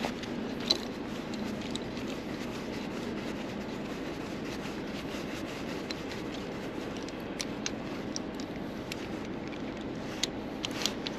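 A truck engine idling steadily, with sharp metallic clicks from a threaded towing pin being fitted into a truck's front tow coupling: one loud click about a second in, and several more in the last few seconds.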